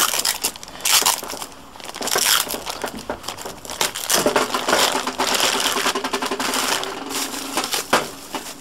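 Clear plastic bag crinkling and rustling in uneven bursts as it is pulled off a rubber gas hose.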